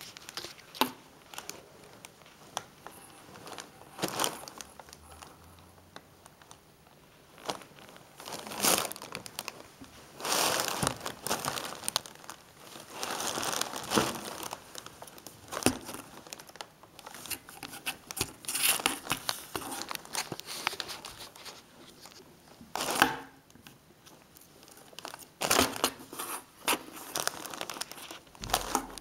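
Clear plastic packing film crinkling and rustling in irregular bursts as a kitten moves around and paws in it.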